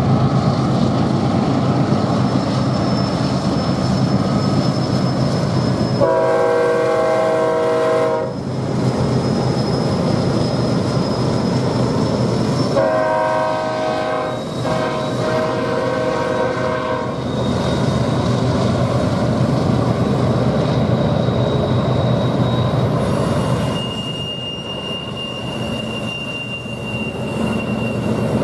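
BNSF diesel locomotives and a double-stack intermodal freight train rolling past with a steady heavy rumble. A locomotive air horn sounds a blast of about two seconds, then a longer blast about 13 seconds in with a short break. Thin high wheel squeals come and go over the rumble.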